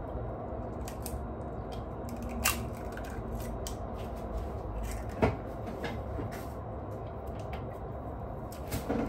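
A few sharp clicks and knocks of kitchen utensils and containers being handled while ingredients go into the lumpia filling, the loudest about five seconds in, over a steady low hum.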